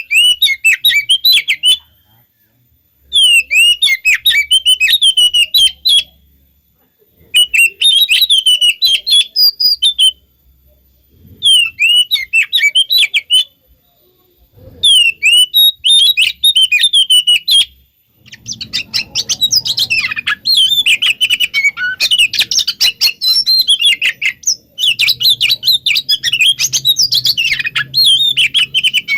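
Oriental magpie-robin (kacer) singing fast, varied whistled phrases in bursts of two to three seconds with short pauses, then carrying on without a break from a little past halfway, over a low hum. This is the agitated 'konslet' song that keepers play as a lure to make a caged kacer answer.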